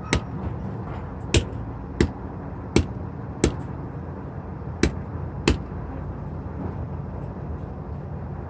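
Seven sharp knocks at uneven spacing over a steady low hum, the last about five and a half seconds in, from work on a semi truck's windshield during its replacement.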